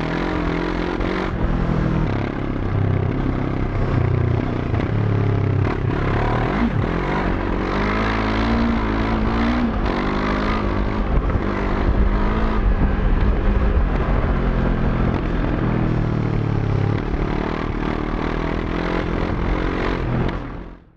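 Moto Morini X-Cape 700's parallel-twin engine running under way off-road, its pitch rising and falling as the throttle opens and closes. The sound fades out at the very end.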